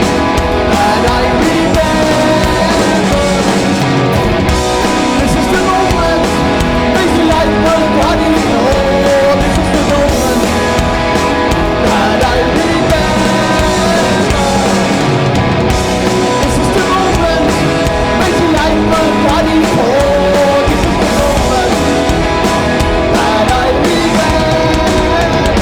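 Live oi punk band playing loud, with distorted electric guitars, bass and drums, and singing.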